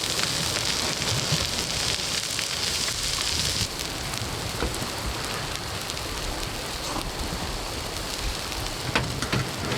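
Makchang (grilled intestines) sizzling and crackling in fat on a hot grill pan, a little quieter after about four seconds.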